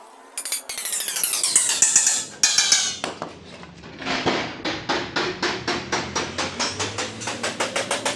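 Hand hammer striking a sheet-metal disc, the metal ringing after each blow. First comes a cluster of ringing clangs. From about four seconds in there is a steady run of quick blows, several a second.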